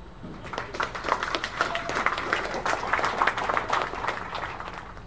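A small group of spectators clapping, with voices mixed in, for about four and a half seconds: it builds, then fades away. The applause marks a point just won in a tennis match.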